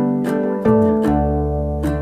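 Background music: a melody of plucked notes over a low held bass note.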